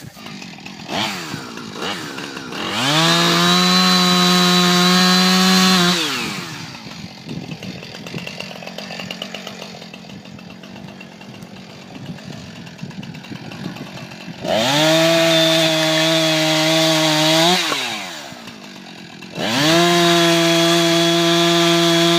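Two-stroke chainsaw revved to full throttle three times, each for about three seconds, dropping back to a quieter idle in between.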